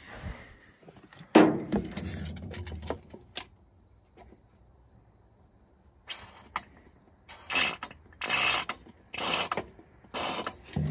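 Squeeze bottle squirting penetrating oil, a mix of acetone, automatic transmission fluid and PB Blaster, into the cylinders of a seized flathead V8 to free the stuck pistons. There is some handling clatter first, then about five short hissing spurts near the end.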